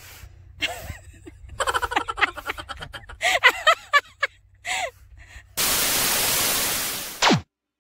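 Loud television-static hiss used as a transition effect. It ends in a quick falling tone and cuts off suddenly. Before it come short vocal exclamations.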